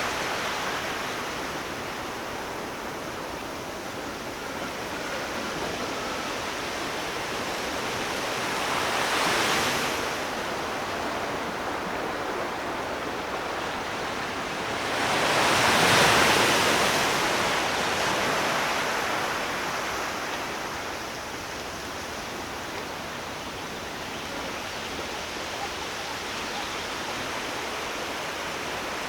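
Ocean surf: a steady wash of waves, with two waves breaking louder, one about a third of the way in and a bigger one just past the middle.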